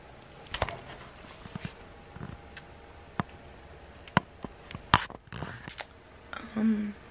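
A handful of sharp clicks and taps close to the microphone, scattered a second or so apart, then a short hummed "mm" from a person near the end.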